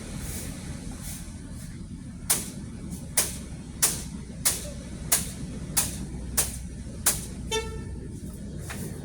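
A vehicle's low running rumble, with sharp ticks starting a couple of seconds in and coming about once every two-thirds of a second, and a short horn toot a little before the end.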